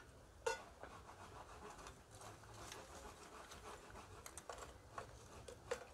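Lumps of charcoal set by hand into the bowl of a coal stove: faint scrapes and a few light clinks, one about half a second in and another near the end.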